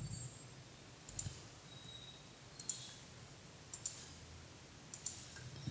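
Computer mouse button clicks: a handful of short, separate clicks about a second apart, faint against a quiet room.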